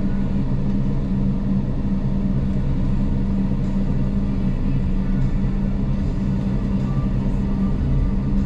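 Steady low drone inside a car's cabin as the car creeps along in slow traffic, its engine running at a low, even pace.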